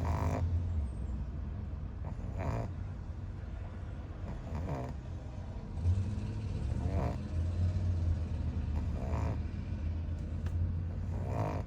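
A person snoring in an even rhythm, six snores about two seconds apart, over the steady low hum of a car.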